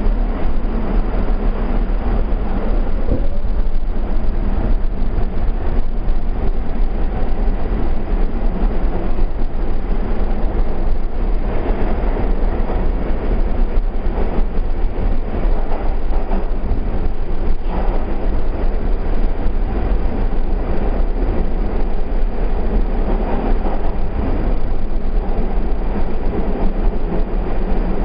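Steady loud rumble around a standing R44 subway car, even in level throughout with no distinct events.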